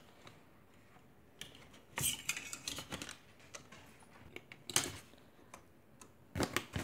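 Scattered clicks, knocks and rustles of 2-inch metal binder clips and a sheet of corrugated cardboard being handled and clipped in place. There is a louder cluster about two seconds in, a sharper knock near five seconds, and a couple more near the end.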